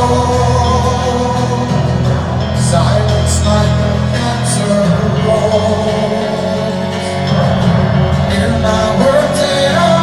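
Live band performance heard from the arena seats: a singer with piano and other accompanying instruments, sustained and full throughout.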